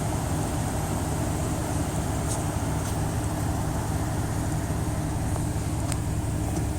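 A car engine idling steadily, heard from inside the car as a low, even hum.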